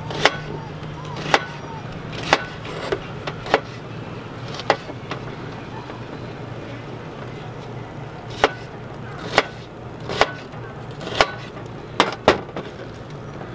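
Chef's knife slicing an onion, the blade knocking down onto a plastic cutting board in separate strokes about once a second, pausing for a few seconds midway.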